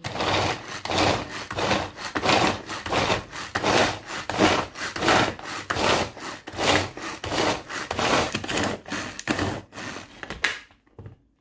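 Pull-cord manual food chopper being yanked over and over, about two pulls a second, each pull a rasping whir of the cord winding out and the blades spinning through chilies and garlic. The pulling stops near the end.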